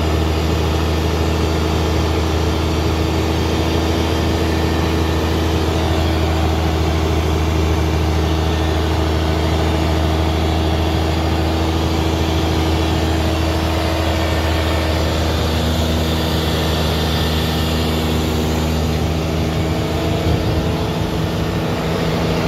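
Fishing boat's engine running steadily at low speed with a deep, even hum; its note shifts slightly about two-thirds of the way through.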